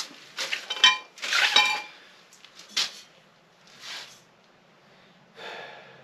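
Stainless-steel exhaust parts clinking together as they are handled, with a few sharp metallic clinks that ring briefly in the first two seconds. After that come a lighter knock and softer handling sounds.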